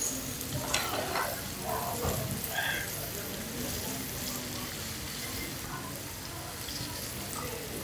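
Beef, king scallops and bean sprouts sizzling steadily on a hot tabletop griddle while chopsticks turn the meat, with a few light clicks in the first three seconds.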